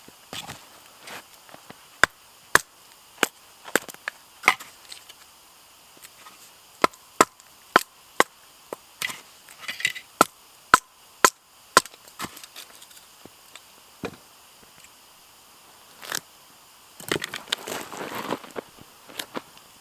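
Dry firewood being chopped for the campfire: a run of sharp, separate wooden strikes, about one to two a second, thinning out past the middle, with a longer scuffling clatter of wood being handled near the end.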